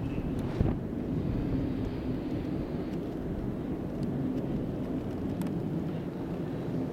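Airbus A380's four turbofan engines rumbling steadily as the airliner climbs after take-off.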